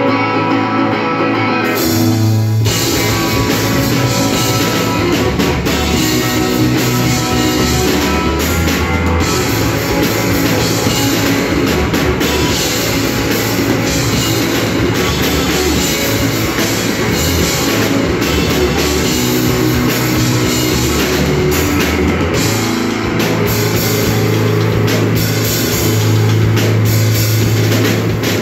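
Live emo rock band playing an instrumental passage on electric guitars and a drum kit. Guitar plays alone at first, then the drums and cymbals come in with the full band about two seconds in and drive on steadily.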